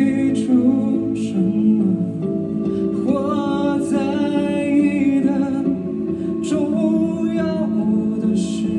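Live band music: a song with a sung vocal line over sustained guitar and keyboard-like chords, with sharp percussive hits every couple of seconds.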